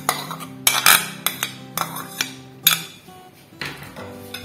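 Metal spoon scraping and clinking against a bowl as mashed boiled cauliflower is spooned out, with about seven sharp clinks in the first three seconds, over soft background music with held notes.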